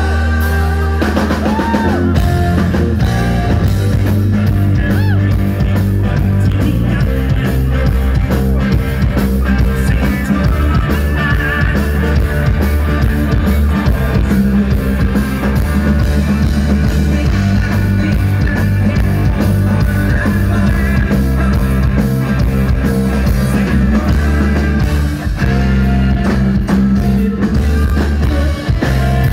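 A live rock band playing loudly: drum kit, electric guitar and bass, with a singing voice over the top.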